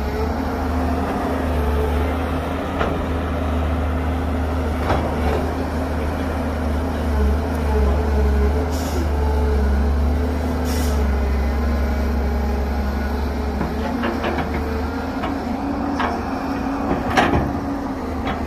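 Heavy diesel engines of an excavator loading a dump truck, running steadily with a note that dips and rises slightly under load. A few sharp knocks sound over it, the loudest near the end.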